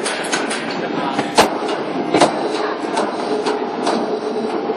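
Heavy-machinery workshop din: a steady machinery hum with irregular sharp metal clanks and knocks, the loudest about a second and a half in and again just after two seconds.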